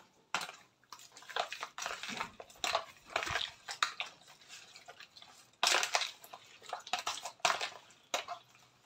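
Pork belly being mixed in a wet marinade in a plastic tub, stirred with a metal spoon and squeezed by hand: irregular wet squelches and spoon scrapes and clicks against the plastic.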